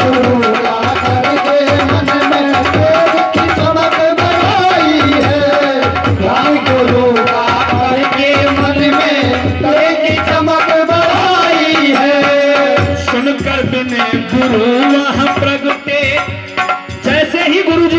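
Kirtan folk music with no words: a hand drum beats a steady rhythm under a continuous, gliding melody line. In the last few seconds the music turns patchy and uneven in loudness.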